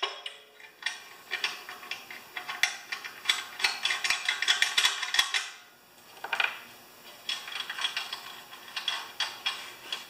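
Rapid metallic clicking and rattling of hand tools and small metal parts being handled on a small engine, in two spells with a short lull about halfway through.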